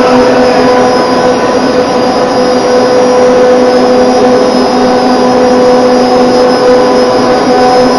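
Mine shaft hoist running: a loud, steady mechanical drone with a constant whine from its electric drive and gear reducer.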